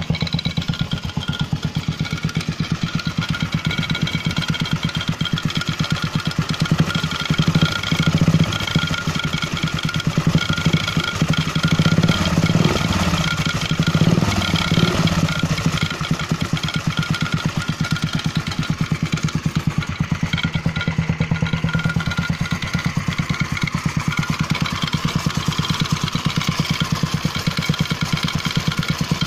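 Air-cooled French Bernard 127 engine of a homemade motorcycle running steadily at idle, with an even, rapid beat. It swells louder a few times in the middle, as if revved briefly, then settles back to idle.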